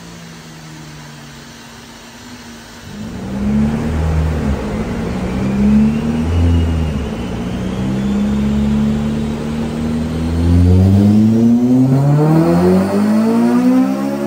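Honda Civic FN2 Type R's K20 four-cylinder engine, breathing through a 4-1 manifold and 3-inch exhaust, running quietly for the first few seconds and then revving: its pitch climbs and drops back several times, with a longer climb near the end.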